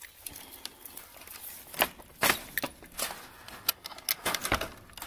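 A string of sharp clanks and rattles from a wire-mesh poultry cage's metal latch and door being worked by hand while closing the hens in, the louder knocks coming from about two seconds in.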